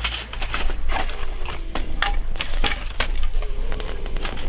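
Wood fire crackling, with dense, irregular snaps and pops as the burning logs throw sparks.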